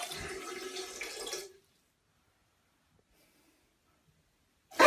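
Toilet flushing, a rush of water that stops abruptly about a second and a half in. A loud sound begins right at the end.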